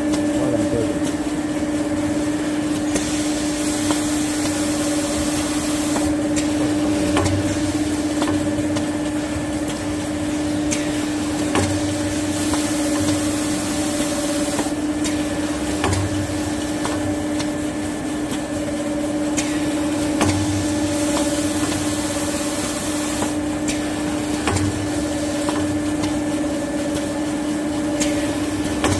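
Automatic maxi roll band saw cutting machine running: a steady motor hum, with a high hiss that comes and goes for a few seconds at a time roughly every nine seconds, and scattered clicks and knocks.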